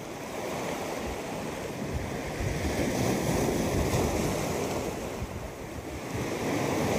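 Sea surf washing against a rocky shore, swelling and easing, with wind buffeting the microphone.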